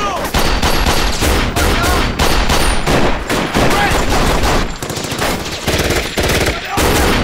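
Heavy gunfire from several guns at once: rapid automatic bursts mixed with single pistol shots in a dense, near-continuous exchange, with a couple of short lulls.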